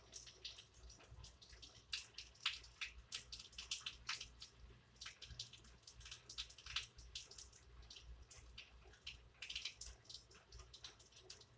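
Rain: soft, irregular drops pattering and dripping, several a second, over a low steady hum.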